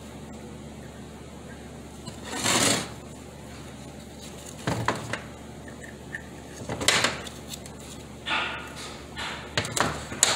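Metal and aluminium parts of a 4T40E automatic transmission clinking and scraping as they are worked apart by hand on a workbench. There are about five short scrapes and knocks, the longest about two and a half seconds in, over a steady background hum.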